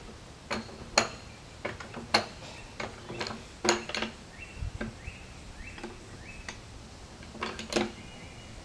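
Irregular metal clanks and clinks, a dozen or so sharp knocks, from handling the sawmill carriage's log dogs and fittings by hand.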